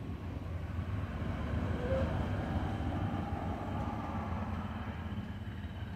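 Steady low outdoor rumble with a faint hiss above it and no distinct events.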